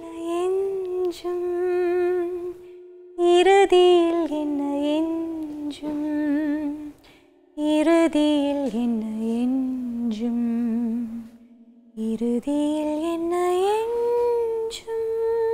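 A woman humming a wordless, slow melody in four phrases, with long held notes and ornamented, wavering turns between them.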